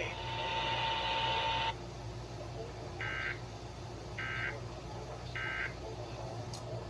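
NOAA Weather Radio EAS end-of-message signal: three short bursts of warbling two-tone SAME data, about a second apart, closing the tornado warning broadcast, heard through a weather radio's speaker. Before them, for about the first second and a half, a steady electronic buzz.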